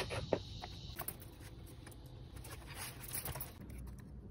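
Faint scattered clicks and light handling noise over a low steady hum.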